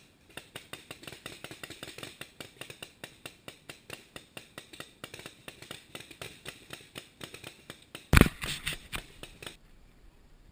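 A rapid, even series of small sharp clicks, about five or six a second, then a loud bump about eight seconds in followed by a short burst of scraping and rustling.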